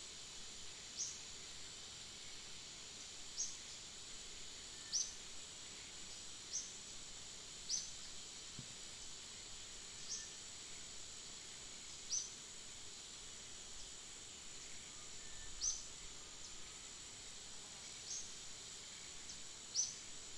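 Outdoor ambience: a steady high-pitched insect drone, with short high chirps that fall in pitch, about ten of them at uneven intervals of one to three seconds.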